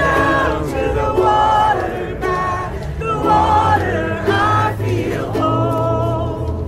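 A crowd singing a slow folk chorus together, several voices at once, with an acoustic guitar accompanying.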